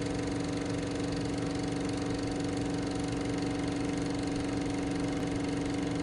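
Vintage film projector running: a steady mechanical whirr and hum with a fine, rapid, even flutter, starting abruptly.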